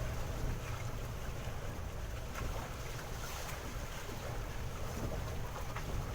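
Wind buffeting the microphone on a small fishing boat at sea, with a steady low rumble and the wash of water around the boat.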